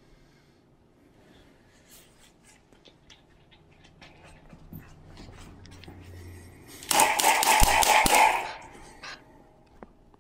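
A small white terrier puppy making play noises close to the microphone during rough play: soft scuffling and a low, steady sound, then a loud, harsh burst about seven seconds in that lasts about a second and a half.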